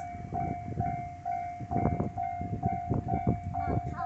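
Japanese level-crossing warning bell ringing steadily at about two strokes a second, while a Meitetsu 3000 series train passes with its wheels clacking over the rail joints in pairs.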